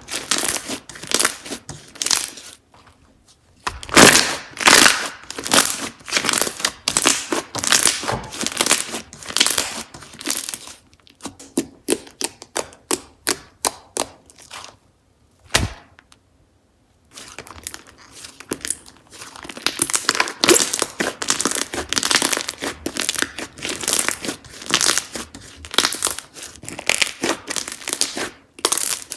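Slime being squeezed, poked and stretched by hand, giving dense runs of sharp crackling, popping clicks. About halfway through, the clicking stops for a couple of seconds, broken by one dull thump.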